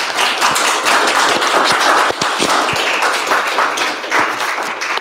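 Audience applauding in a room, many hands clapping together, tapering off near the end.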